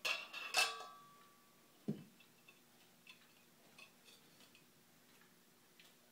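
Kitchen utensils clinking together as a toddler plays with them: two sharp clinks in the first second with a short metallic ring, a dull thump about two seconds in, then faint scattered light taps.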